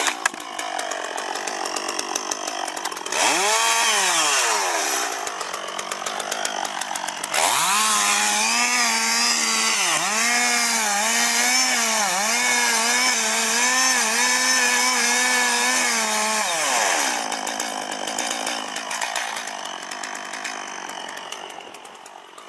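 Two-stroke chainsaw revving briefly, then running at full throttle for about nine seconds while cutting wood, its pitch dipping again and again under load. After that it drops back and fades.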